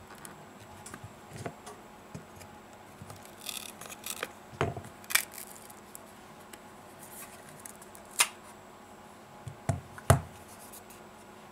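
A phone's heated back cover is lifted and peeled off its adhesive tape by hand. There are scattered sharp clicks and taps and a couple of short scratchy, crackling stretches as the tape lets go.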